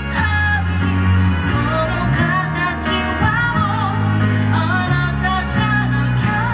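Background pop song with a sung melody over bass and drums.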